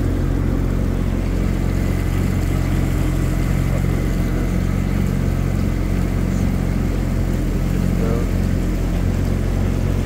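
Engine of the boat carrying the camera, running steadily at low cruising speed through the marina: a constant deep hum.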